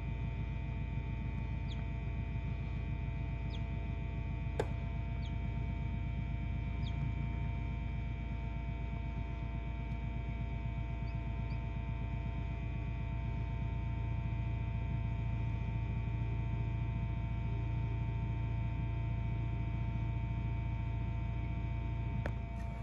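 Egg incubator running with a steady hum made of several fixed tones. A few faint, short, high chirps that slide downward come from a hatchling chick in the first half, and there is one sharp click about four and a half seconds in.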